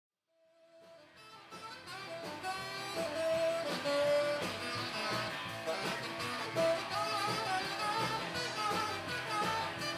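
Band music with guitar fades in over the first couple of seconds, then plays on steadily.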